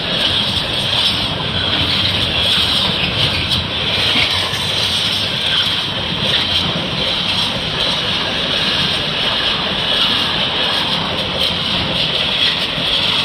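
Freightliner freight train passing over the level crossing: a steady, loud rolling noise of steel wheels on rail, without let-up.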